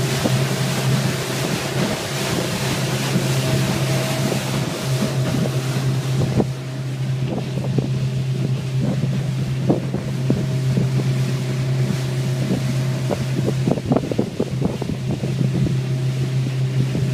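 Suzuki outboard motor running steadily at speed, a constant low hum, with water rushing past the hull and wind on the microphone. From about six seconds in, irregular short thumps come through the engine sound.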